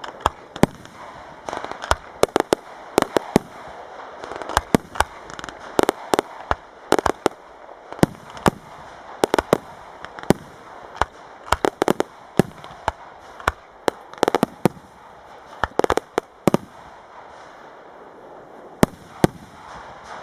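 Professional fireworks display: a dense, irregular barrage of sharp shell bursts and cracks over a steady crackling hiss. It thins out after about sixteen seconds, with two last bangs near the end.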